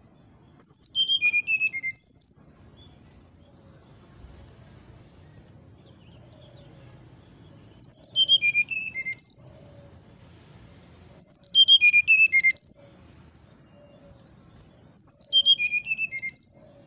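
Brown-chested jungle flycatcher (sikatan rimba dada coklat) singing four short phrases. Each phrase is a quick run of high notes stepping down in pitch and ends with a note sweeping up.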